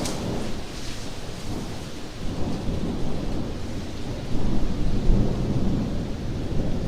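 Thunder rumbling over steady rain, the rumble swelling about four seconds in.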